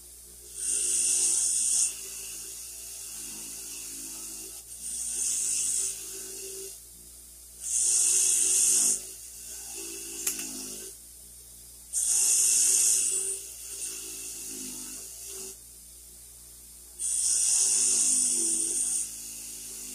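Wire wheel spinning, with a steel hammerhead pressed against it five times for a second or two each: a loud high hiss of the wire bristles scrubbing off rust residue and paint. Between passes only the motor's steady hum is heard.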